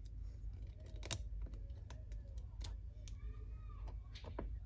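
Small metal parts of a pneumatic impact wrench being handled and fitted during reassembly: a few sharp, separate clicks and light taps over a low steady hum.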